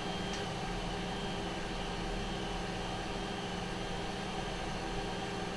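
Raise3D N2 Plus 3D printer running during Z-axis homing, giving a steady, even mechanical hum with a faint hiss as the build plate is driven up.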